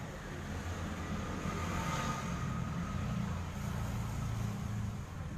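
A large vehicle's engine running with a steady low rumble that grows a little louder about a second in.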